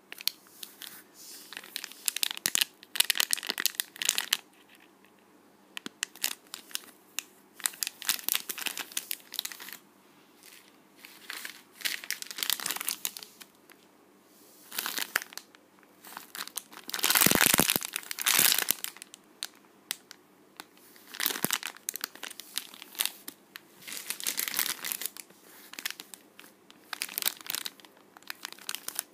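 Clear plastic packaging of squishy toys crinkling as it is handled, in irregular bursts with short pauses between them; the loudest burst comes a little past the middle.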